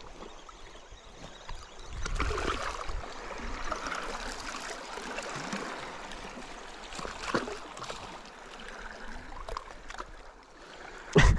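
Sea water lapping and sloshing against shoreline rocks, with small knocks and rustles from handling a landed fish. A sharp knock just before the end is the loudest sound.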